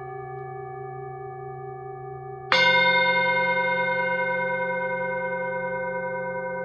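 Singing bowl struck once about two and a half seconds in, ringing with several clear overtones that slowly fade, over the lingering hum of an earlier stroke.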